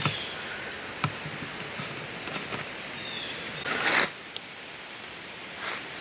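Slow footsteps on dry leaf litter on the forest floor: a few light steps and one louder crunch about four seconds in, over a steady hiss of wind in the trees.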